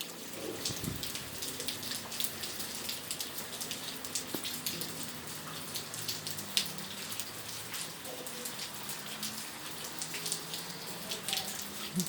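Hail and rain coming down steadily: a dense hiss of falling water dotted with many small, sharp ticks of hailstones striking.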